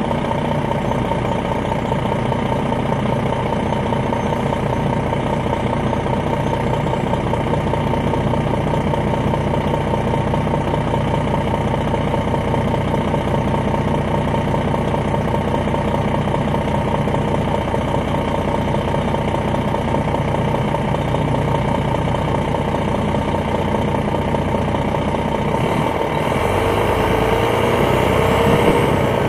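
Detroit Diesel Series 60 diesel engine of a 2001 MCI D4000 coach idling steadily, heard from inside the bus. Near the end the engine speeds up, its pitch rising and growing louder.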